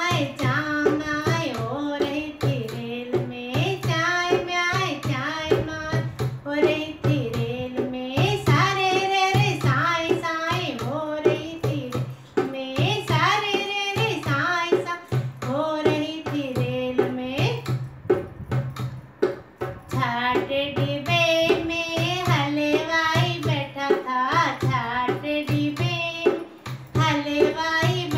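A woman singing a Hindi banna-banni wedding folk song while accompanying herself on a dholak, the drum beating a steady rhythm of deep bass strokes and sharper slaps under her voice.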